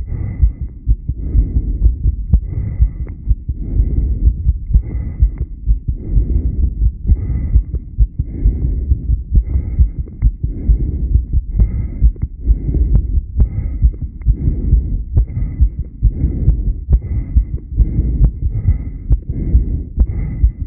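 A human heartbeat heard close up, as through a chest pickup: a regular run of low beats, roughly one a second, recorded during a long breath-hold.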